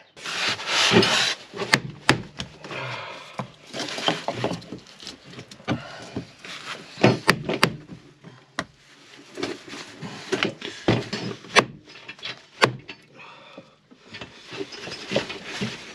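A long-handled nail puller levering a copper nail out of a wooden boat frame: scraping and creaking of metal against timber with irregular sharp clicks and knocks.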